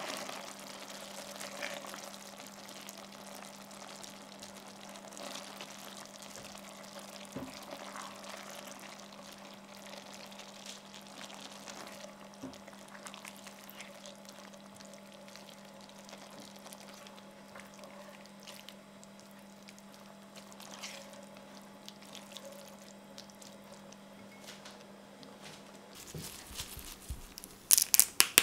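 Chicken and spaghetti simmering in wine sauce in a stainless steel frying pan: a steady bubbling hiss with small pops as a spatula stirs melting butter through, over a steady low hum. Near the end, a few sharp, loud crackles as basil leaves are plucked by hand.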